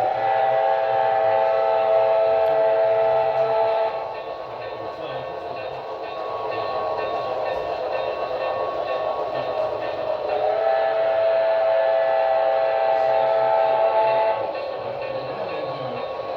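Model Santa Fe 4-8-4 Northern steam locomotive's sound unit blowing its chime steam whistle in two long blasts, each about four seconds, about six seconds apart, over the steady running sound of the train.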